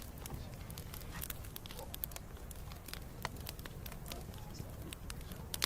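Wood fire crackling, with irregular sharp pops and snaps over a low, steady rumble of burning.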